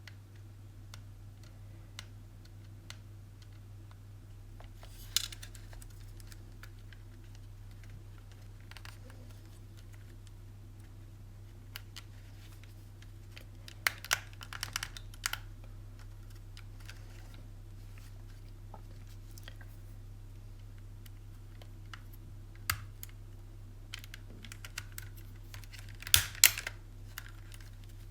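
Scattered small plastic clicks and taps from handling a PS5 DualSense controller's parts, in clusters about five, fourteen and twenty-six seconds in, over a steady low hum.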